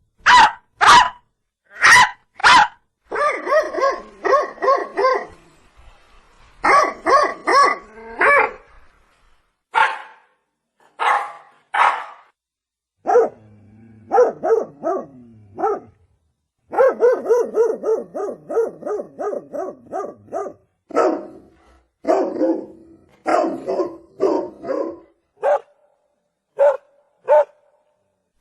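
Dog barking in volleys: single and doubled barks, then a fast run of barks about halfway through, with short pauses between.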